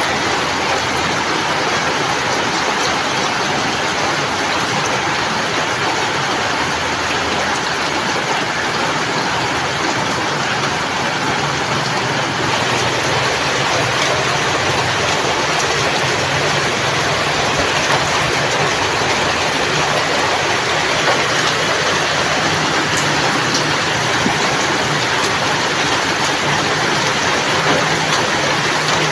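Steady rain falling, an even, constant hiss with no breaks.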